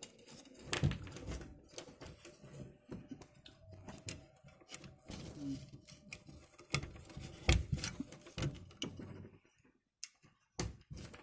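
Irregular light clicks, taps and rustles of wire leads and plastic connectors being handled and fitted onto a CRT TV's circuit board, dying away briefly near the end.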